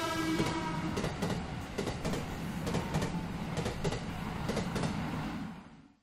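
Shinkansen bullet train passing: a steady rumble with irregular clacks of wheels over rail joints. It opens with a short horn-like tone and fades away near the end.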